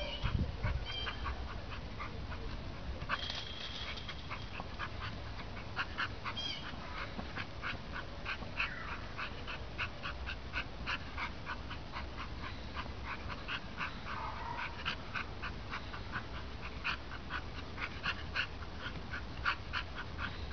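Small dog heading a ball over and over: a run of short, quick sounds about two to three a second, with the dog whimpering and yipping as it plays.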